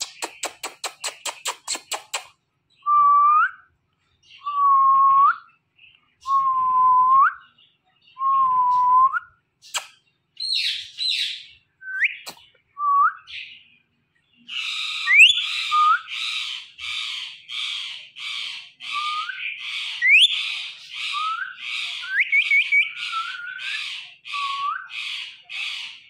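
Rapid kissing smacks and four whistled notes that each dip and then rise, traded with an Indian ringneck parakeet. The parakeet then gives a long run of short, raspy calls at about two a second.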